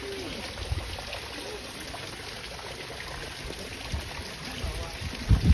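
Steady flowing, trickling water, with a few low thuds, the loudest a pair near the end.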